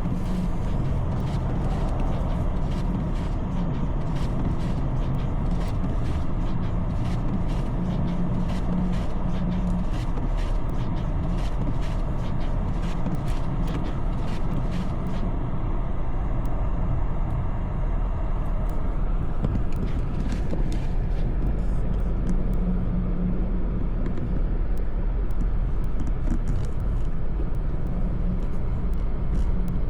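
Steady low rumble of a motor vehicle, with many short clicks or rattles through about the first half that thin out after that.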